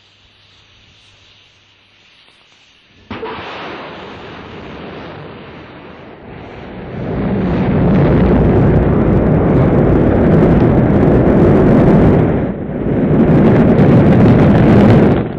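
Rocket launch: a faint low hum, then engine ignition breaking in suddenly about three seconds in. The noise swells about halfway through into a loud, steady rumble of liftoff, dipping briefly a few seconds before the end.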